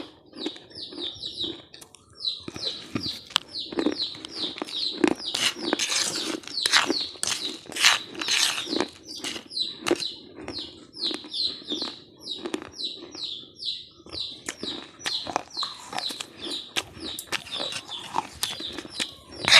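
Crunchy fried snack being bitten and chewed close to the microphone, irregular crackling crunches that are heaviest a few seconds in. A bird chirps rapidly and repeatedly in the background, short falling chirps about three a second.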